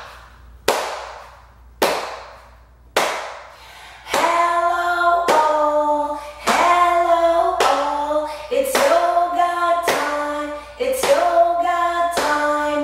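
A woman keeps a steady beat by clapping and patting her lap, about one stroke a second. From about four seconds in she sings a chant over the beat.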